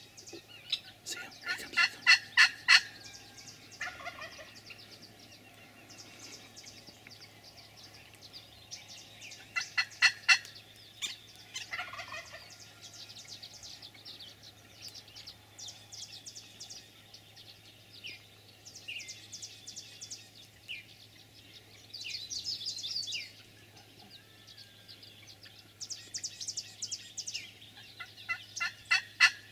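Wild turkey gobbler gobbling, a loud rapid rattling call heard three times: about two seconds in, about ten seconds in, and near the end.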